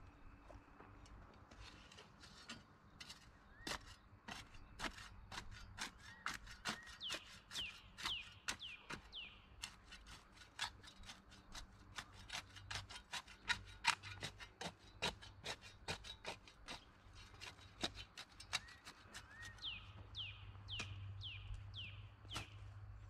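Hand shovel digging and scraping dirt and gravel, giving irregular sharp scrapes and clinks as soil is moved. A bird sings runs of short falling notes twice, and a low hum grows near the end.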